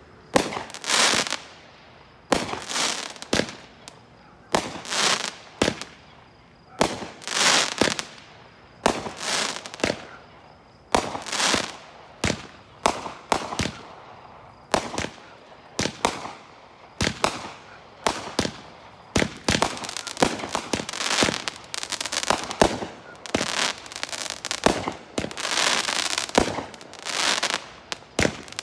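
Chain-fused consumer firework cakes firing in sequence. There is a sharp launch bang every second or so, each followed by the shell bursting overhead. From about two-thirds of the way in, the shots come faster and run together into a nearly continuous volley.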